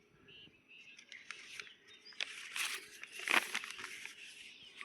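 Leaves of a Solanum indicum plant rustling as they are handled and turned over, in two short bursts about two and three seconds in, with faint bird chirps.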